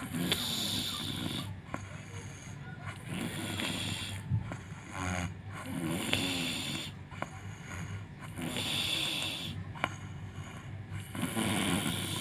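An elderly woman snoring in deep sleep, with her face mask still on, one rasping breath every two to three seconds, about five in all.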